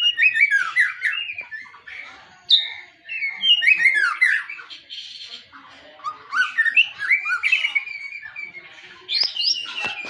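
White-rumped shama singing a varied song of rapid, sweeping whistled phrases in several bursts with short pauses between them, laced with imitated calls of other birds.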